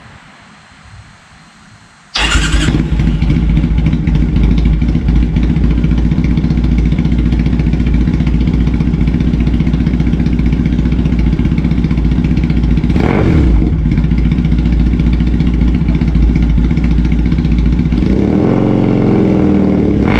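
A Triumph Bonneville T100's parallel-twin engine starts up about two seconds in and settles into a loud idle through its exhaust. It gets a short blip of the throttle about halfway through and is revved up near the end.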